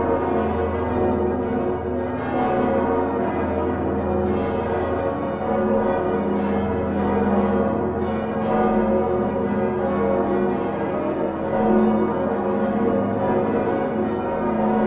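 The Utrecht Dom tower's peal of great church bells swinging on straight yokes with flying clappers, many ringing at once. The bells are Geert van Wou's bronze bells of 1505, joined by smaller 1982 bells. Strokes overlap in a continuous, dense wash of deep bell tones.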